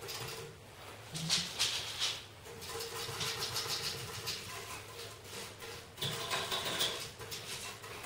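Old, stiff, worn-down paint brush scrubbing soot off the glass of a cast-iron stove door, in repeated short scratchy strokes.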